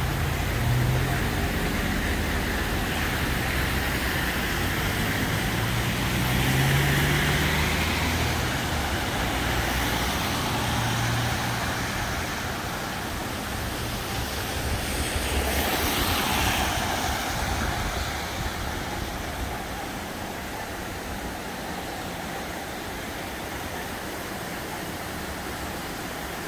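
Road traffic on wet roads: a steady rush of noise with a low vehicle engine hum through roughly the first twelve seconds, and a brief louder swell about sixteen seconds in.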